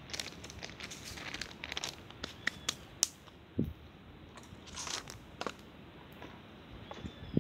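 Plastic bag crinkling and rustling as it is handled, in irregular bursts with sharp clicks, and a short dull knock about halfway through.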